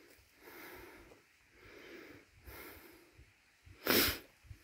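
A hiker breathing heavily from a steep uphill climb, breaths coming about once a second, with one sharp, much louder rush of air near the end.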